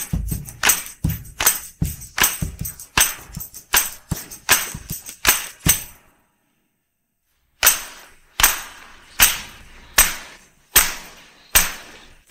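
Isolated drum, tambourine and handclap tracks from a 1960s pop recording playing a steady beat of about four or five strikes a second. About six seconds in the beat stops dead for about a second and a half, then comes back as sparser strikes, about one every 0.8 seconds.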